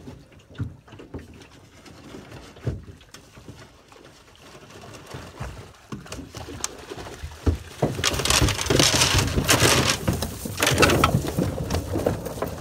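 A cast net full of sábalo fish being hauled into an aluminium boat, with knocks of net and fish against the hull. From about eight seconds in it gets much louder as water splashes and streams off the net and the fish land on the boat floor.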